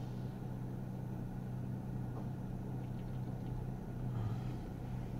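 Steady low hum with a muffled wash of water spray on the windshield, heard from inside a car's cabin while a touchless Laserwash 360 car wash sprays a weak, watery second coat of pre-soak.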